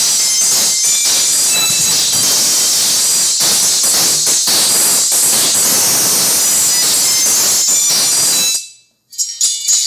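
Music played through a pair of B2 Audio Rage H1-Neo 1-inch neodymium horn tweeters on one amplifier channel: only the super-high end of the music comes through, a loud, thin sizzle with almost no bass or body. It cuts out for a moment near the end, then starts again.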